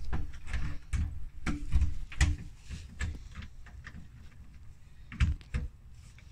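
Irregular clicks and knocks of a new doorknob being worked into the bore hole of a door, many in quick succession at first, then a couple of louder knocks near the end.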